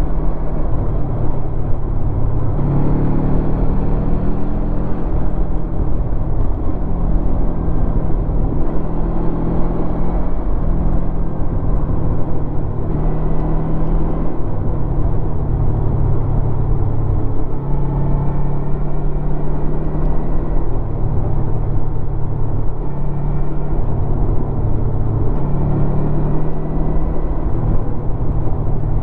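2016 Honda VFR800's V4 engine on its stock exhaust while riding, its note rising and falling repeatedly with the revs over a steady low rumble.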